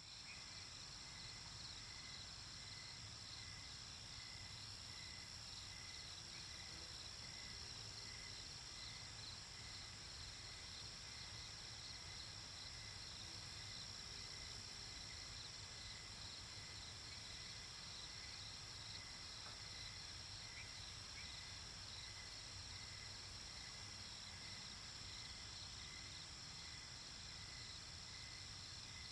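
Crickets and other insects singing in a steady night chorus: a continuous high drone with evenly repeating pulsed chirps layered over it, above a faint low steady rumble.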